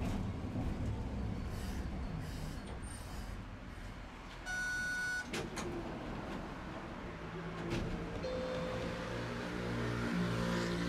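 Tosaden streetcar running, heard from inside the car as a steady low rumble of wheels on track. About halfway through a short electronic beep sounds, and near the end steady layered tones come in over the rumble.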